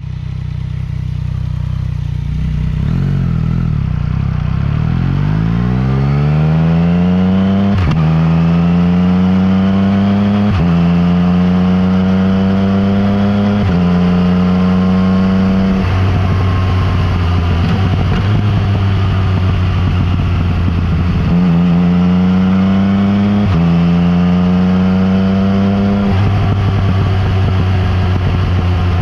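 Yamaha MT-09 Tracer's three-cylinder engine through an Akrapovič exhaust. It starts from low revs, then pulls away with the pitch rising and dropping sharply at each of several upshifts. It then runs at steadier revs, with another short rise and fall near the end.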